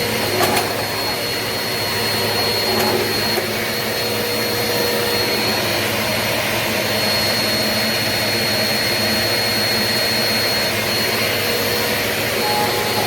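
Eureka PowerSpeed bagless upright vacuum cleaner running steadily, a rushing motor noise with a thin high whistle held over it. A couple of brief knocks sound in the first few seconds.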